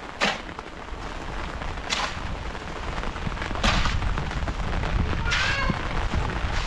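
Four sharp strikes, evenly spaced a little under two seconds apart, over a low rumble that grows louder about halfway through.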